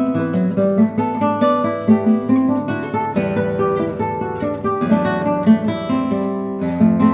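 Classical guitar music: nylon-string classical guitars playing a steady stream of plucked notes and chords.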